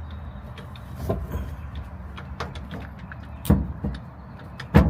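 Scattered metallic clicks and knocks of a socket and tools being fitted onto a seatbelt bolt, the loudest two near the end, over a steady low hum.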